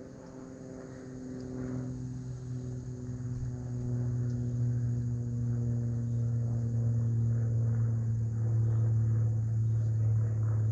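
A motor or engine running with a steady low hum, getting louder over the first few seconds and then holding.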